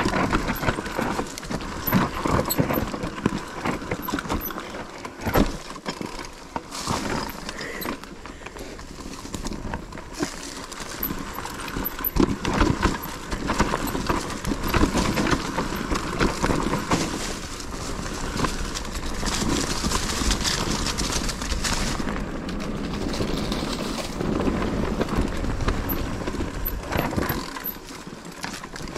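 Mountain bike rattling over a rough trail: an irregular run of knocks and clatter from the bike over continuous tyre noise.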